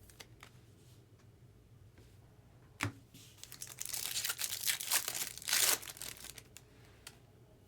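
A foil trading-card pack wrapper being torn open and crinkled. There is a sharp click about three seconds in, then about three seconds of crackling, loudest near the end of the tear.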